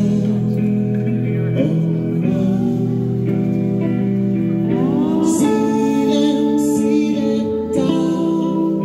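Live rock band playing on electric guitars in a sustained, droning passage, with a rising pitch slide about five seconds in.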